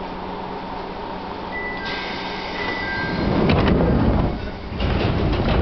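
Doors of a Chichibu Railway 1000 series electric train closing at a station: a hiss starts about two seconds in, then two loud spells of sliding and shutting, over the steady hum of the stopped train.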